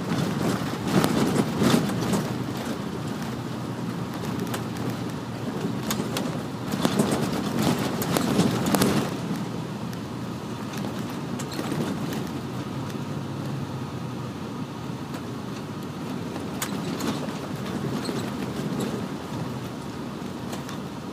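Cabin noise inside an MCI D4500CL coach bus at road speed: the steady low rumble of engine and tyres, with louder, rougher stretches in the first two seconds and again about seven to nine seconds in, and scattered clicks and rattles.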